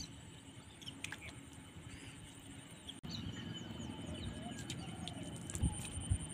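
Faint wild birds chirping and calling around open water, over a steady high background tone, with a couple of soft low thumps near the end.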